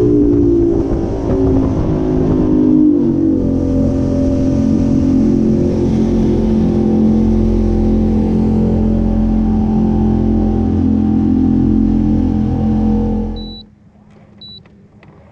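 Jet boat's engine running at speed, with water and wind rushing past the hull. The engine note shifts over the first few seconds, then holds steady and cuts off abruptly near the end, leaving a quieter stretch with two short high beeps.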